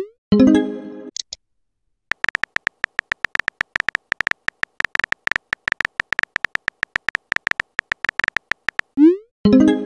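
Chat-app sound effects: a short message chime near the start, then a long run of rapid phone-keyboard typing clicks, each with a brief beep. A rising swoosh and another chime near the end mark a message being sent.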